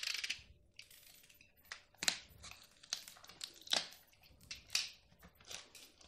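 Cardboard packaging and tape being worked open by hand: a series of short crinkling, tearing rustles, irregular and about a second apart.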